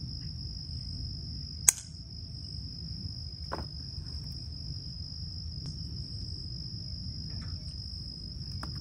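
Steady, unbroken high-pitched trill of an insect. A single loud sharp click comes a little under two seconds in, and a fainter one about a second and a half later.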